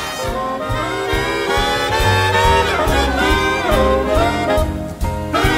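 Recorded big band swing backing track, saxophones and brass playing together. About five seconds in there is a brief break before the band comes back in louder.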